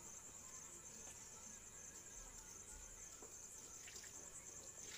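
Near silence with a faint, steady high-pitched chirring of crickets.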